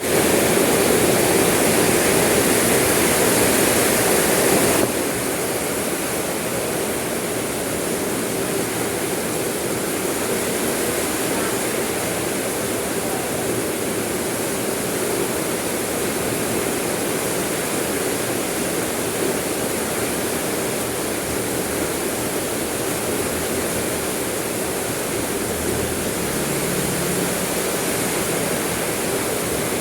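Steady hiss of heavy rain falling. The hiss is louder for about the first five seconds, then drops suddenly to a slightly quieter, even level.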